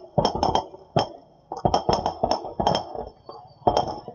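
Fireworks going off: a rapid, irregular series of sharp bangs and cracks, several a second, with a short lull about three seconds in.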